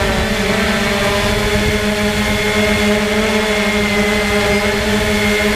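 Quadcopter drone's electric motors and propellers whining steadily, heard from the drone's own on-board camera: a constant multi-tone hum whose pitch drifts only slightly.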